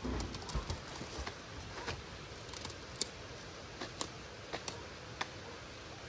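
Cauliflower leaves being cut and snapped off the head with a knife: scattered crisp snaps and clicks, with a few low thumps in the first second.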